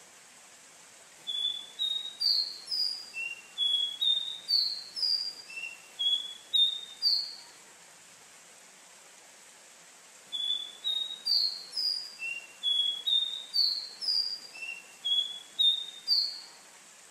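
Caboclinho, a Sporophila seedeater, singing: two phrases of quick, clear, slurred whistled notes, about two notes a second and each phrase some six seconds long, with a short pause between them. A steady faint hiss lies underneath.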